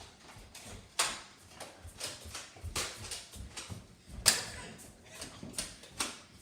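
Irregular sharp knocks and clacks in a small room, with the two loudest about a second in and just past four seconds.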